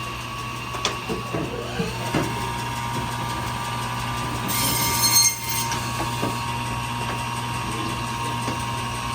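Meat-cutting band saw at a fish counter: the blade spins up about two seconds in, then runs steadily and briefly cuts through a whole katla carp, with a short harsh rasp about five seconds in as it goes through the fish.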